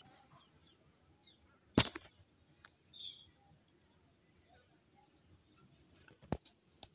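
A small steel bowl set down on the ground: one sharp knock about two seconds in, then a fainter click near the end. Otherwise quiet, with one short high chirp around the middle.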